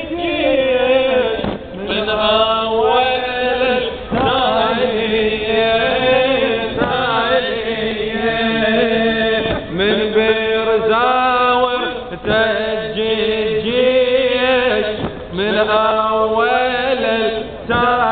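A man chanting an Arabic latmiyah, a Shia mourning lament, into a handheld microphone, in long melodic phrases that rise and fall and break every couple of seconds.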